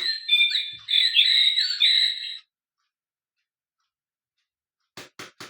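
A singing bird clock's small speaker playing a recorded bird song for about two and a half seconds, thin and without any low end: the speaker doesn't work so well. A few short clicks follow near the end.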